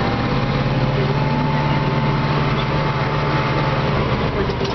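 Tractor's diesel engine running steadily under way, heard from inside the cab; its note steps up slightly just after the start and then holds steady.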